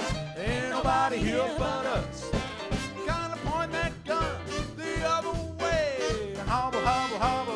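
Live jump-blues band playing an instrumental break with a steady swing beat: saxophone and trumpet with electric guitar, piano, upright bass and drums.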